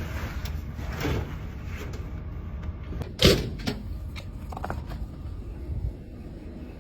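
A steady low rumble with one loud, sharp knock about three seconds in and a few softer knocks around it.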